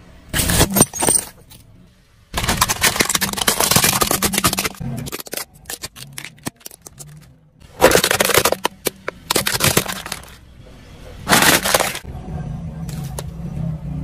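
A car tyre rolling over and crushing things, heard as separate bursts of crunching and cracking. There is a long crunch as a bowl of shallots is flattened, then sharp cracks as a plastic toy SUV breaks under the wheel.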